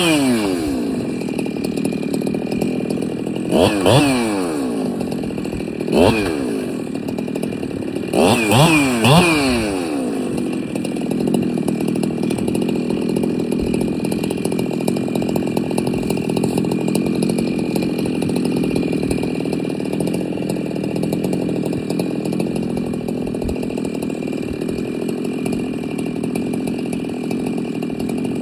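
Chainsaw dropping from full revs to idle as a cut ends, then blipped up briefly three times in the first ten seconds before idling steadily.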